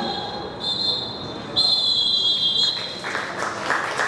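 Referee's whistle blown in long, shrill blasts, the last about a second long: the whistle ending the match. Scattered clapping starts near the end.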